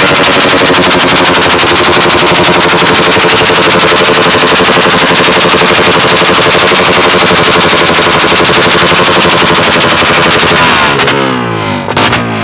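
Modified Suzuki underbone motorcycle engine revved hard and held at high revs, a very loud, rapid rattling exhaust; about eleven seconds in the revs fall away.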